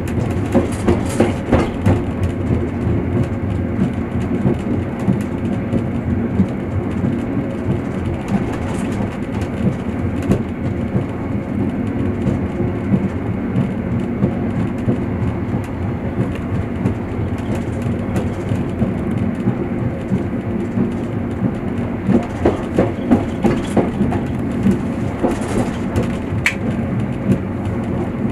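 Passenger train running, heard from inside the carriage: a steady rumble of wheels on track, with runs of wheels clicking over rail joints near the start and again about three-quarters of the way in, and a brief squeak near the end.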